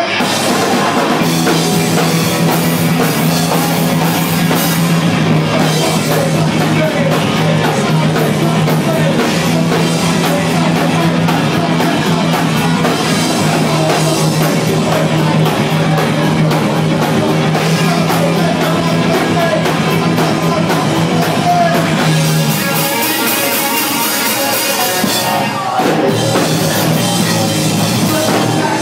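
Punk band playing live: distorted guitar, bass and drum kit with shouted vocals. A steady low note runs under the first twenty-odd seconds. About three-quarters of the way through it drops out for a few seconds of crashing cymbals, then the full band comes back in.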